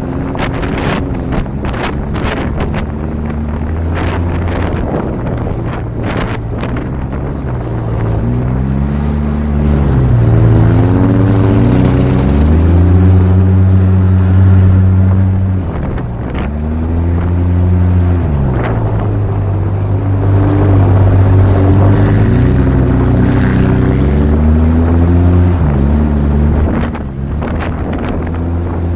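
Polaris RZR 800 side-by-side's engine driving hard, its pitch rising and falling several times as it speeds up and eases off around the track. Wind buffets the microphone over the first several seconds.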